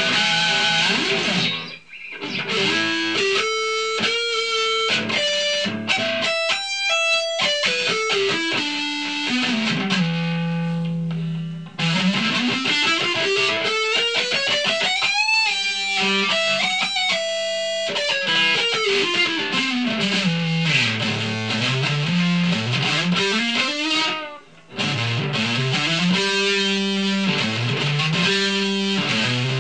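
Distorted electric guitar, an Ibanez S470 with DiMarzio Gravity Storm pickups, played through an amp. It plays single-note lead lines with long, smooth pitch glides down and back up. The playing breaks off briefly about two seconds in and again near twenty-four seconds in.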